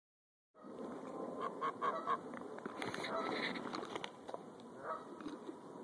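Greylag geese honking: a quick run of about four short honks a little over a second in, then more calls through the middle and one more near the end.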